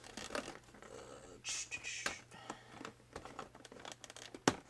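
Cardboard packaging rustling and a plastic Nerf blaster shifting and knocking in its box as it is handled. Scattered rustles and light clicks, with one sharp click near the end.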